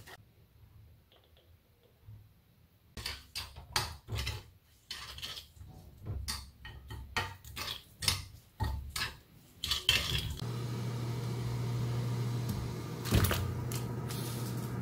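A metal spoon clicking and scraping against a ceramic bowl, stirring chili powder into a seasoning paste. From about ten seconds in, a steady hiss with a low hum comes from a pot of water heating chicken breasts on a cooktop, with one knock partway through.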